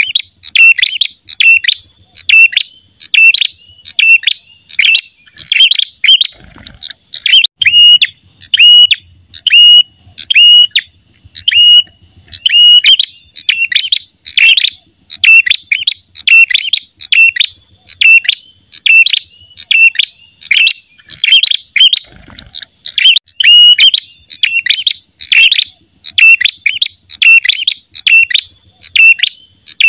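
Ashy tailorbird (prenjak kepala merah) calling loudly and without pause, a fast series of sharp, repeated notes about two to three a second. It is the bird's aggressive 'fighting' call, the kind played to lure other tailorbirds.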